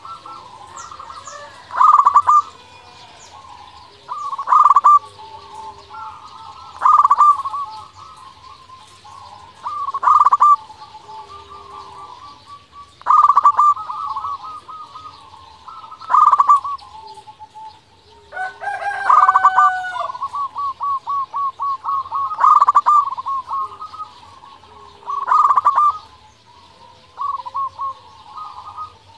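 Zebra dove (perkutut) singing: loud cooing phrases repeated about every three seconds, each a quick run of short notes, with a faster run of repeated notes a little past the middle. Small birds chirp faintly behind.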